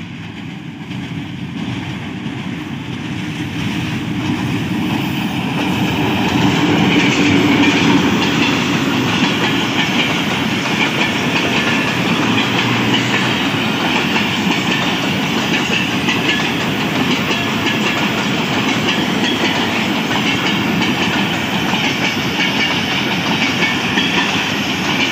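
Diesel-hauled Pakistan Railways passenger train passing close by. The locomotive's engine grows louder as it approaches and is loudest about seven or eight seconds in, then the coaches roll past with steady clickety-clack of wheels over the rail joints.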